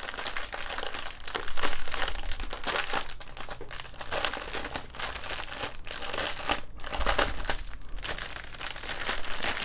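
Clear plastic packaging crinkling and crackling irregularly as hands pull at a stuck-down plastic sleeve of diamond-painting drill bags to open it.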